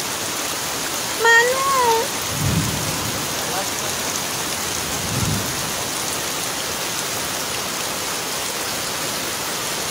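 Heavy typhoon rain pouring steadily onto floodwater, a continuous hiss. About a second in, a person gives a short high wailing cry, and two brief low rumbles follow.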